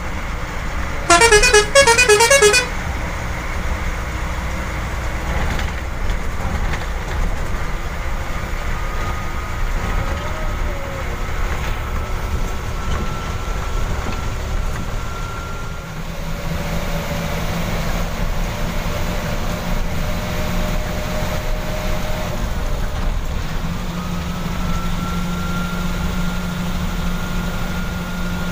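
Steady diesel engine and road noise inside a moving bus's cab. About a second in, a loud warbling multi-tone horn sounds for about a second and a half. Later a faint whine rises slowly in pitch over the running noise.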